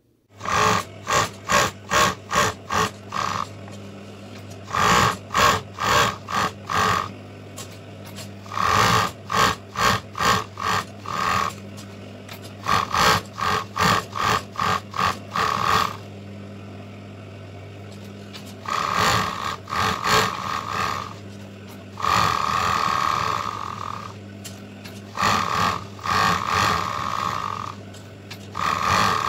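Industrial overlock machine (serger) running in repeated runs of a few seconds as raw edges of cotton fabric pieces are overlocked, with a steady motor hum in the pauses between runs. The earlier runs stutter in rapid pulses; the later ones run continuously.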